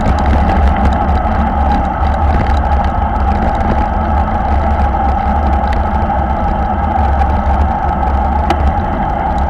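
Steady wind rush on a bike-mounted camera's microphone, with road-bike tyres humming on asphalt, while riding in a racing bunch at about 45 km/h. A few faint clicks come through.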